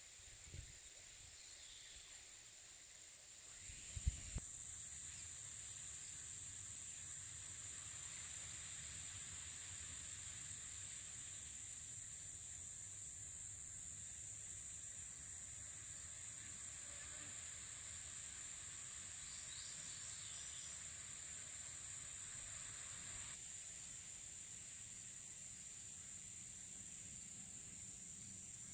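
Summer insect chorus shrilling steadily at a high pitch, with a second, shriller layer above it that comes and goes in stretches of several seconds. A single soft knock about four seconds in.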